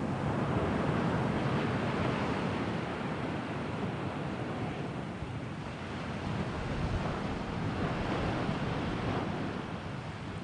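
Sea waves breaking and washing on the shore, swelling twice.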